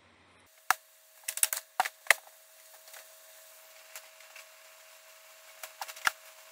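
Sharp clicks and knocks from handling a black strappy sandal with metal ornaments as it is taken off and put down: a cluster about one to two seconds in, and a few more near the end.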